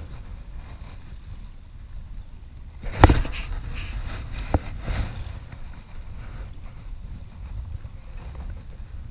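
Steady low rumble of wind and choppy water on a kayak-mounted microphone, broken about three seconds in by a loud knock and a few sharp clicks as an arm brushes against the camera.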